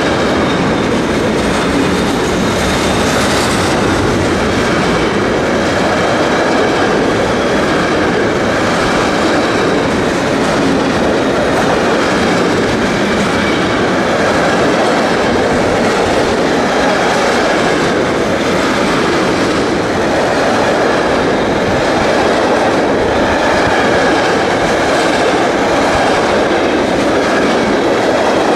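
Intermodal freight train's container wagons rolling past at close range: a loud, steady rumble and rush of steel wheels on the rails, with no letup.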